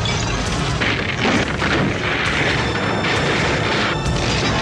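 Horror-film trailer soundtrack: ominous music under heavy booms and crashing effects, with a rumble throughout and several noisy surges.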